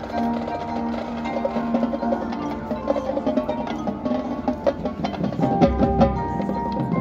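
Marching band playing its competition show: sustained ensemble notes over mallet percussion and drums, with heavier low hits about five and a half seconds in.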